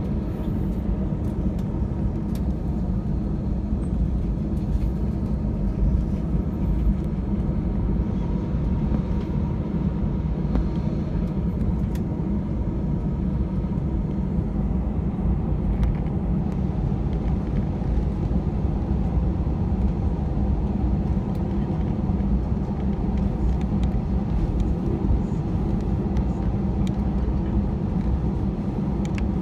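Airbus A320 cabin noise while taxiing: a steady low rumble of the jet engines at idle and the airframe rolling over the taxiway, with a faint steady whine above it.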